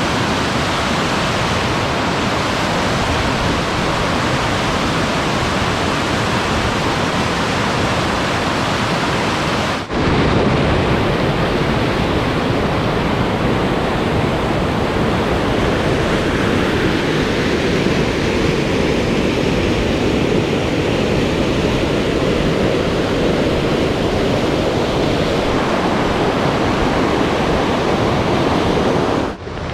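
Loud, steady rush of fast-flowing water, with a brief break about ten seconds in and another near the end.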